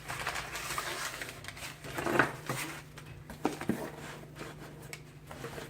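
Rustling and handling noise as pocket knives and packing are rummaged through, busiest in the first two seconds or so, then a couple of sharp clicks about three and a half seconds in. A steady low hum sits underneath.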